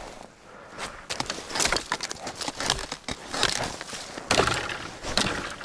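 Irregular crunching and sharp snapping of dry wood being broken and handled while gathering firewood, with a few louder cracks in the second half.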